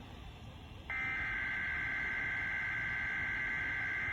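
Emergency Alert System SAME digital header: a harsh data burst of two rapidly alternating tones. It starts about a second in, lasts about three seconds and stops abruptly. It is one of the repeated header bursts that announce an incoming alert, here a severe thunderstorm watch.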